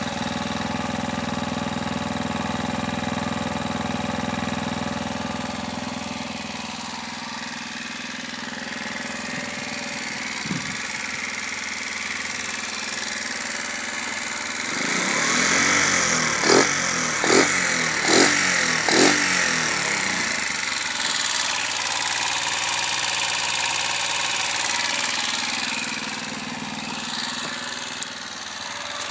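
Sachs MadAss motorcycle's small air-cooled single-cylinder engine idling, revved in four quick throttle blips about halfway through, then settling back to idle.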